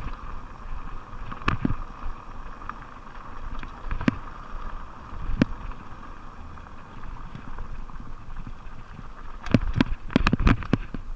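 Fuji Beartooth 27.5+ plus-tyre mountain bike running fast down a dirt trail: a steady rush of tyre and air noise, broken by sharp clacks and rattles as the bike jolts over bumps. The clacks come singly a few times, then in a quick cluster near the end.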